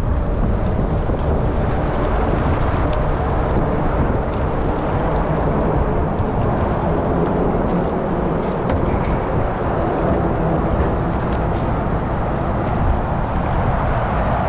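Wind buffeting a GoPro Hero 8's microphone while kayaking: a loud, steady rushing rumble.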